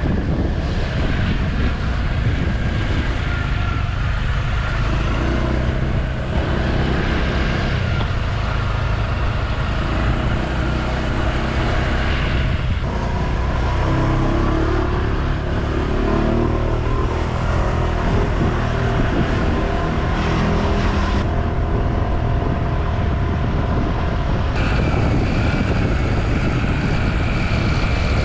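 Motor scooter engine running while riding, its pitch rising and falling with the throttle, with wind buffeting the microphone.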